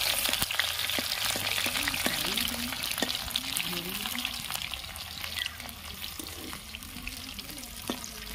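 Batter-coated cauliflower florets deep-frying in hot oil in an iron kadai, sizzling and crackling steadily, with a metal spatula scraping and tapping the pan now and then. The sizzle eases a little after about five seconds.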